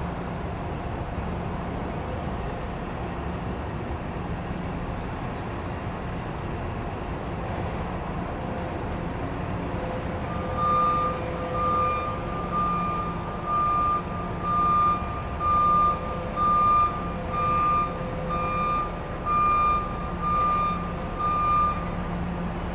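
Truck engine running with a steady low rumble; about halfway through, its reversing alarm starts beeping, a single high tone about once a second, a dozen times, then stops.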